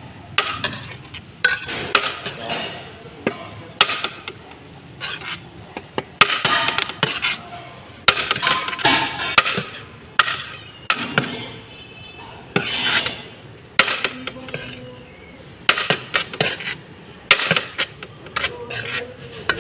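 Metal serving spoon clinking and scraping against a large aluminium cooking pot and a steel plate as rice is dished out, in irregular clanks and scrapes.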